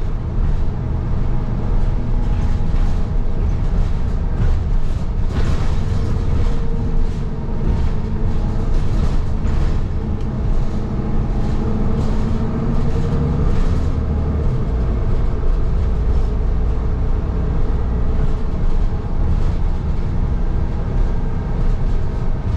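Inside a moving city bus: a steady, heavy rumble of the engine and road, with scattered rattles and knocks from the body and fittings.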